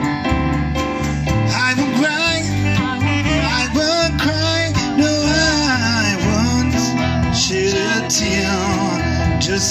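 Live rock-and-roll band playing: electric bass, drum kit and electric keyboard keeping a steady beat, with a man singing lead.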